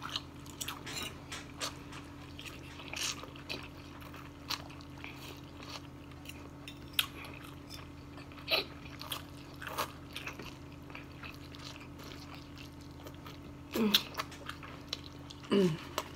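Two people slurping and chewing spicy instant noodles, with short wet mouth smacks and clicks at irregular intervals over a steady low hum. Near the end come two short sounds falling in pitch.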